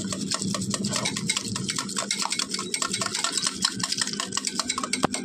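Wire balloon whisk beating yogurt and sugar in a bowl, its wires clicking rapidly and evenly against the bowl.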